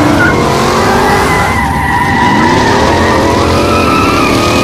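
Car engine revving up and down over the screech of tyres spinning and sliding on asphalt in a burnout drift.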